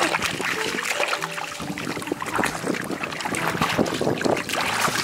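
Shallow water splashing and sloshing in many irregular strokes, as from hands and bodies working through water to catch fish.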